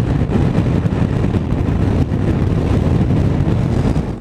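Honda X-ADV 2021's 745 cc parallel-twin engine running steadily as the scooter rides along the road, mixed with wind noise over the microphone.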